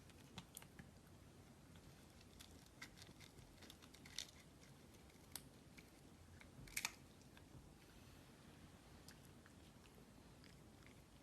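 Faint, irregular clicks and crunches of a cat chewing food, with a louder crunch about seven seconds in.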